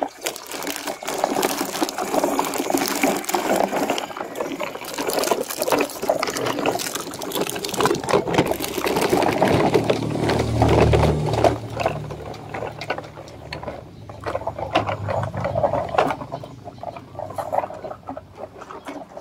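Plastic toy trucks pulled on a string over a dirt and gravel path, their wheels and bodies giving a dense, crackling rattle as they roll over the grit, easing off near the end.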